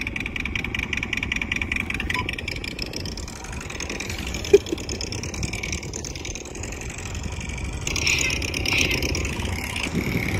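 Synthetic gas-scooter engine sound played through a DIY VESC onewheel's built-in Bluetooth speakers: a fast pulsing engine note that idles and revs, louder near the end. A single sharp click about halfway through.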